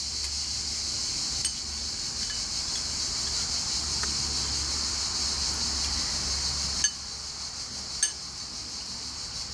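A fork clinking against a glass bowl three times, sharp and brief, as feta cubes are picked out, over a steady high-pitched insect chorus.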